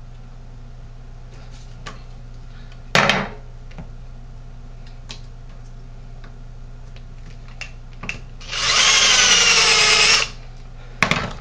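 Power drill spinning a 12-gauge roll crimp bit down onto a shotshell hull for about two seconds near the end: a loud, wavering whine as the roll crimp is formed. A short knock comes about three seconds in.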